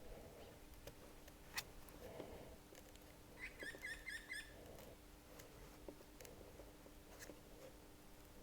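Near-silent room tone with faint scattered clicks and taps, and a short run of about five quick high chirps about three and a half seconds in.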